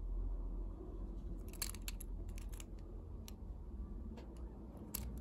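Small clicks and taps of a die-cast Majorette Honda Civic Type R toy car being handled and turned in the fingers, a cluster of them about one and a half to two and a half seconds in and another near the end, over a low steady hum.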